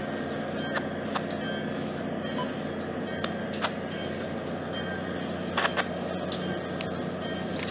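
Shore Line East passenger train with an EMD GP40-2H diesel locomotive, moving along the platform: a steady low diesel drone with a faint high whine and scattered sharp clicks.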